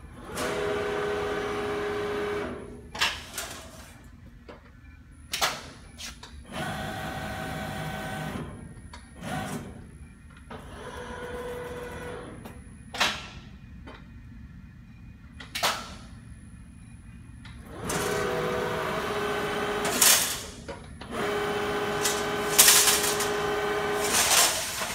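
Schroder SPB 3200/3 hydraulic CNC folding machine cycling through a fold: repeated spells of a steady whine, each about two seconds long, as the beams move, with sharp clanks in between.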